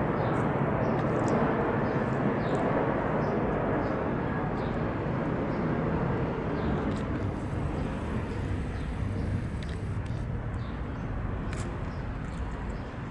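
Outdoor urban background: a steady low rumble of distant traffic that slowly fades, with faint short high chirps scattered through it.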